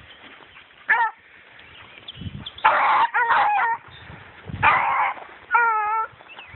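Beagles baying in repeated short calls, about five in all, the last a longer bay with a wavering pitch: hounds giving tongue while running a rabbit's scent.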